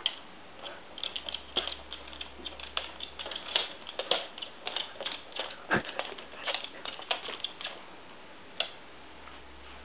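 Irregular light taps and clicks, with one louder knock about six seconds in: a cat and a husky scuffling and pawing among papers on a wooden shelf.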